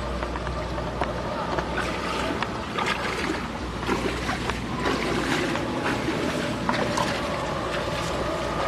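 Water sloshing and splashing as a person wades through shallow pond water on foot, with irregular small splashes from the steps.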